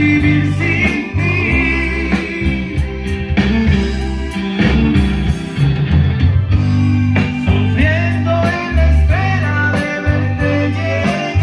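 A band playing: a steady beat with a pulsing bass line, guitar, and a melody carried above it.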